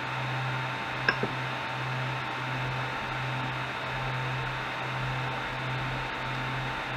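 Ender 3 Pro's Y-axis stepper motor driving the print bed, a quiet steady hum that breaks off briefly several times, with a single click about a second in. It runs near-silently.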